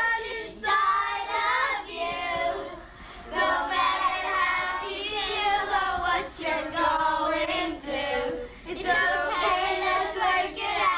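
A group of children singing together, in phrases of held notes with short breaks between them.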